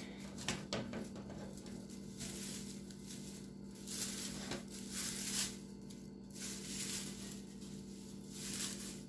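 Rustling and crinkling of a flexible plastic mesh dehydrator tray sheet and fresh cilantro leaves being handled over a glass bowl, in a few short bursts. A steady low hum runs underneath.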